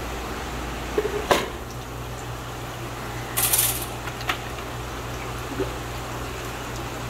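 A plastic bucket being handled over an open fish vat: a sharp knock about a second in, a brief splash of water a little before halfway, then a light click. A steady low hum runs underneath.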